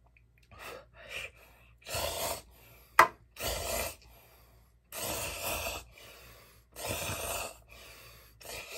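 Chapagetti instant jjajang noodles slurped in a string of short pulls, about half a second each, with one sharp click about three seconds in.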